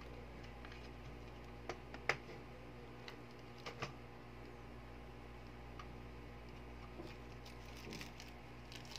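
A few small clicks and taps of metal and plastic airsoft pistol parts being handled on a tabletop, the sharpest about two seconds in and a pair just before four seconds, over a steady low hum.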